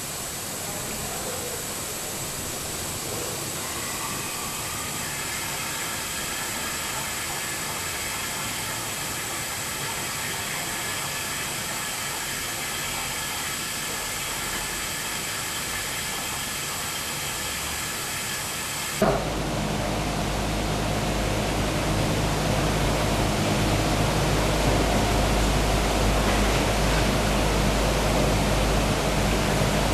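Steady hissing rush from a steam-heated press for old black beeswax combs, with melted wax and water running from its spout into a bucket. About two-thirds of the way in the sound shifts abruptly to a louder, deeper rush with a steady hum.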